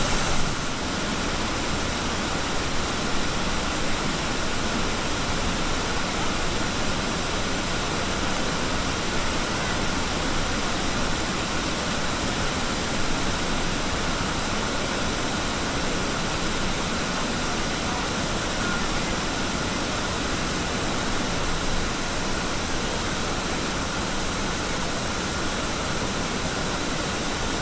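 Steady rush of a partly frozen waterfall, water still pouring and flowing under the ice.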